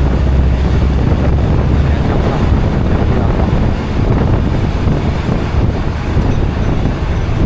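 A bus running on a steep mountain road, heard from inside: a steady low engine drone with road and wind rumble.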